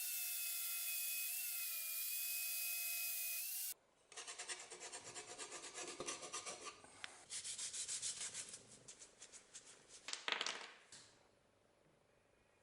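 A power tool's motor runs with a steady whine, then cuts off abruptly. Fast, regular rubbing strokes on wood follow, about three to four a second, with one louder scrape near the end before they stop.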